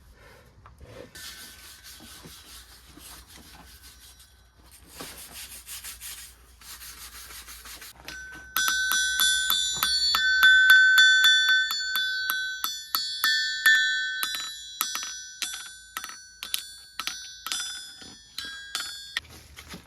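Hay-Budden anvil struck over and over with a hammer, each blow ringing with clear, high, bell-like tones; the strikes come quickly and fade toward the end. Before the strikes there are a few seconds of scraping on metal.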